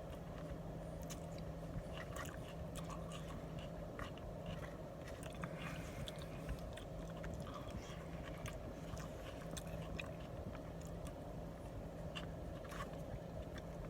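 Person chewing and eating a burrito bowl close to the microphone: irregular small wet clicks and mouth noises, over a steady low hum.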